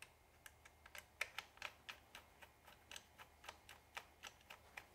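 Phillips screwdriver driving a small screw into a bipod adapter bracket on a rifle stock, giving a run of faint, fairly even clicks about four or five a second as it is turned.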